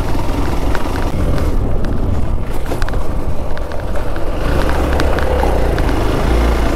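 Motorcycle riding over a rough off-road trail: the engine runs under a heavy low rumble that grows stronger about two-thirds of the way in, with scattered clicks and rattles throughout.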